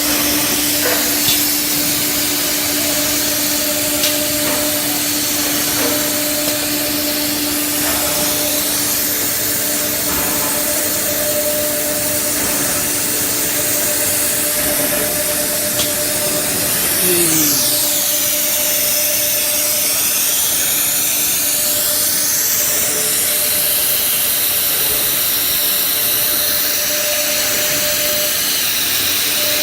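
SUDIAO S5 CNC nesting router running, a steady loud machine noise with hiss and a constant hum. About 17 seconds in, a high spindle whine dips and then climbs back up over several seconds.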